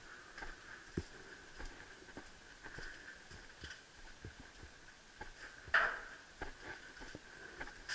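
Footsteps walking over a littered floor in a derelict building: quiet, irregular taps and crunches, with one louder scrape about six seconds in.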